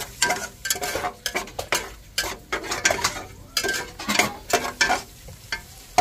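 Metal spatula scraping and clinking against the bottom of an aluminium pot, stirring chopped garlic that sizzles lightly in hot oil. The scrapes come in quick, irregular strokes.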